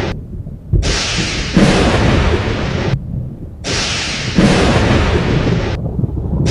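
Thunderstorm sound effect: loud thunder, claps setting in suddenly over a deep rumble, broken three times by abrupt dips where only the low rumble remains.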